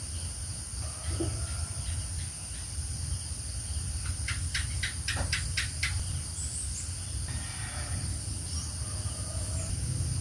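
Steady high-pitched hiss over a low hum, with a quick run of about seven clicks near the middle.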